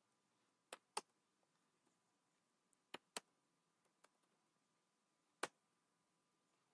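A handful of separate computer keyboard keystrokes, about six short clicks, some in quick pairs, with near silence between them.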